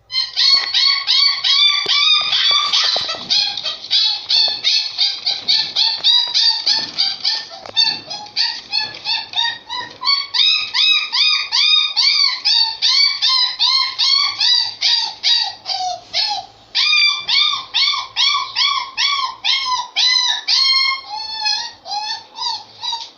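Dog whimpering and yipping in a continuous run of short, high, arching cries, several a second.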